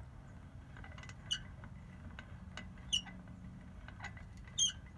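Gear train of a 1929 Buddy L Model 280 A toy cement mixer turning on new 3D-printed plastic gears, ticking steadily as the teeth mesh, with a short squeak about every second and a half, three times.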